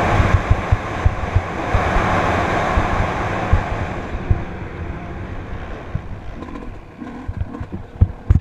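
Wind rushing over the microphone of a camera moving fast along a rough dirt track, with frequent short low thumps from the bumpy ground. The rush dies away over the second half.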